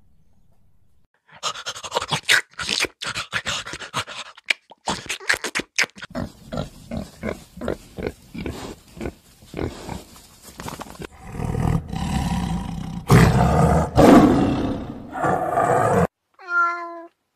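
Tiger growling and snarling in a run of rough bursts, building to a loud, deep roar in the last few seconds. A short, higher-pitched call follows near the end.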